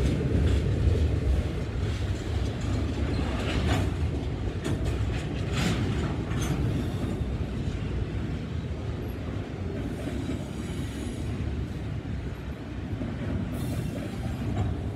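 Double-stack intermodal freight train's well cars rolling past: a steady low rumble of steel wheels on rail, with scattered clicks and clanks a few seconds in and a faint high wheel squeal around ten seconds in.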